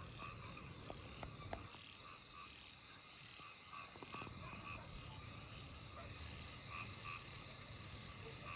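A faint chorus of frogs calling, many short croaks repeating and overlapping at a few steady pitches.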